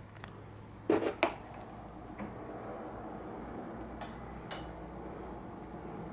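Handling noise as equipment is set up: two knocks in quick succession about a second in, then two sharp clicks later, over a faint low steady hum.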